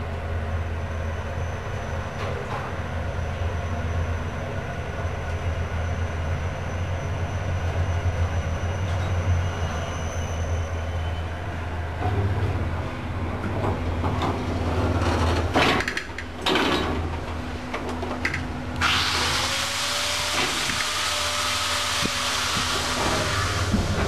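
1990 Mitsubishi passenger lift travelling up, heard from inside the car as a steady low hum. About two-thirds of the way through come a few clunks as the car arrives and stops. Soon after, a steady loud hiss starts suddenly and holds.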